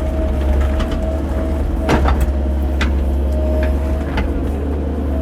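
Cat 308 mini excavator's diesel engine running steadily under load, with a steady hydraulic whine, while the bucket digs. A few sharp knocks are heard, the loudest about two seconds in.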